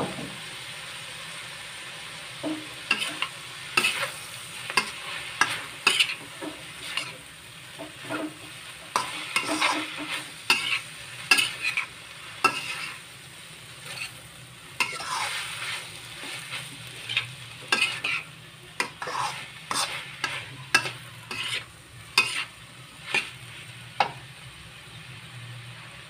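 Metal spatula scraping and tossing bean sprouts and mushrooms around a stainless steel wok in quick, irregular strokes, over a steady sizzle of frying. The stirring stops about two seconds before the end, leaving the sizzle.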